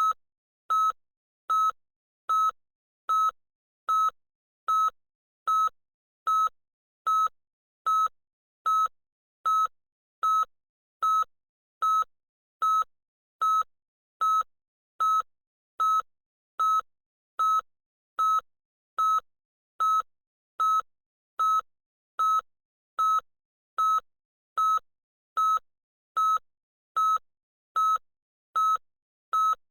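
Electronic beeper giving short, identical, high beeps at a steady rate of a little more than one per second, with silence between beeps.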